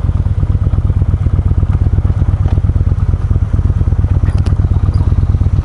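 Yamaha Bolt's 941 cc V-twin engine running at low speed, with a steady, fast pulsing exhaust beat.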